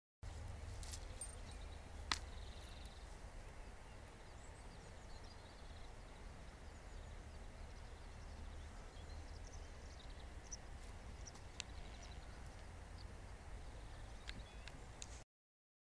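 Outdoor riverside ambience: a steady low wind rumble on the microphone, with faint, scattered high bird chirps and one sharp click about two seconds in.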